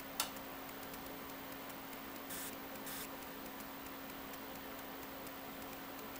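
Quiet room tone at an electronics bench: a steady low hum with faint ticking, one sharp click just after the start, and two short soft hisses about two and a half and three seconds in.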